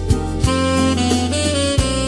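Slow smooth-jazz instrumental: a saxophone holds a melody line over a steady bass, with soft drum hits about twice a second.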